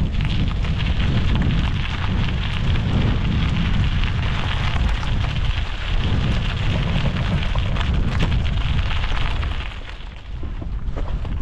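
Mountain bike's knobbly tyres crunching and rattling over a loose gravel track, under heavy wind buffeting on the handlebar microphone. It gets quieter about ten seconds in.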